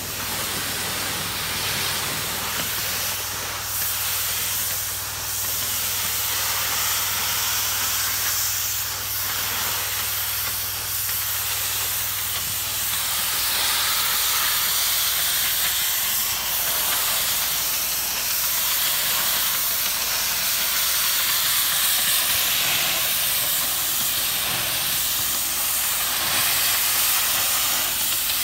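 Pressure washer's high-pressure water jet hissing steadily against roof tiles as the wand is swept across them. A faint low hum underneath stops about halfway through.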